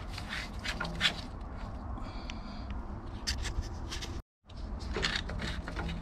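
Metal clicks and scrapes from the Grundfos UP15-14B circulation pump's motor head being twisted off its brass housing by hand. There is a short squeak about two seconds in, and the sound cuts out completely for a moment just past four seconds.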